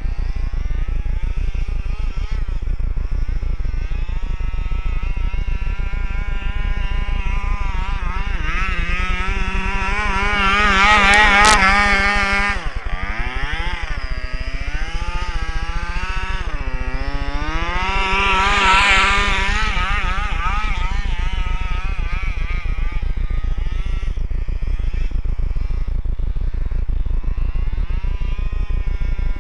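The 27cc two-stroke gas engine of a large-scale FG RC truck being driven hard, its pitch wavering up and down constantly. It climbs to its highest revs about ten seconds in, drops off sharply a little later, then revs high again near nineteen seconds.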